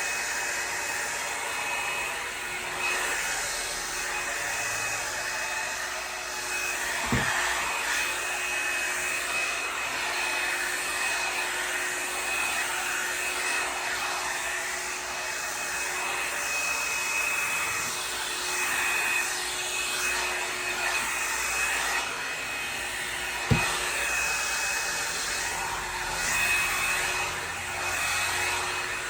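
Revlon One-Step Volumiser hot-air brush running on a steady airflow with a high whine, the rush swelling and easing a little. Two sharp knocks stand out, one about seven seconds in and a louder one near the end.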